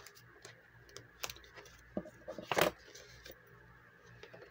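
Paper banknotes and a cash-envelope binder being handled: light rustling and small clicks, with one louder crackle about two and a half seconds in.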